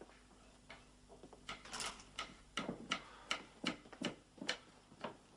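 A steady series of sharp, hard knocks, about two and a half a second, starting faintly and getting louder from about one and a half seconds in.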